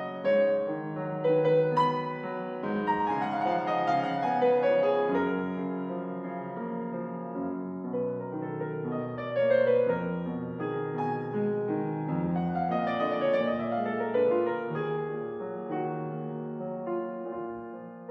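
Background music played on piano: gentle, sustained notes that move through changing chords.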